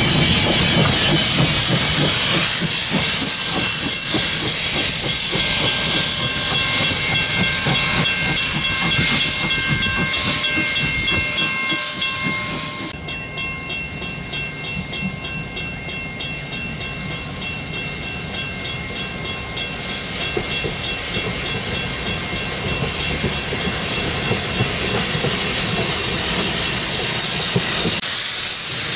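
Hiss of escaping steam from 1878 Beyer Peacock steam locomotive 1210. The loud hiss drops away about 13 s in and comes back about 20 s in.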